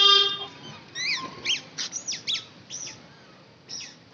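Bird chirping: a string of short, high chirps, each sweeping down in pitch, coming at an uneven pace, with a gap near the end. A steady held tone ends about half a second in.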